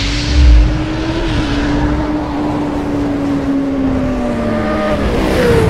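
Sound-effect motorcycle engine for an animated outro: a whoosh and a low boom, then the engine holds one steady note that slowly sags in pitch and drops sharply near the end.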